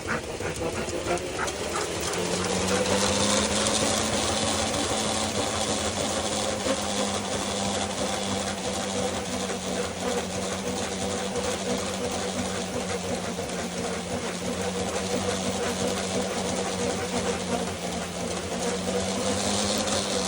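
Electric dog treadmill motor running steadily with a constant whine, rising a little in pitch and loudness about two seconds in as the belt comes up to speed, then holding.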